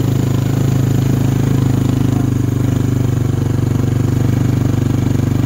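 Quad (ATV) engine running at a steady speed while towing a sled on a tow strap, a dense low drone that holds even throughout.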